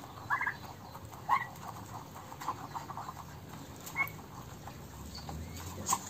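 Young white turkeys feeding at a grain trough: short high chirping calls every second or two, with a quick run of small pecking taps about halfway through.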